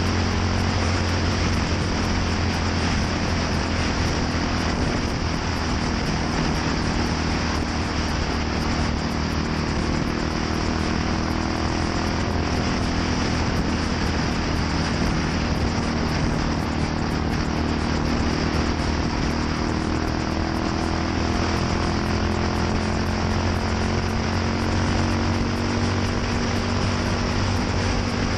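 Yamaha SR400's single-cylinder four-stroke engine running through a NitroHeads aftermarket muffler, a steady exhaust note whose pitch drifts slowly up and down.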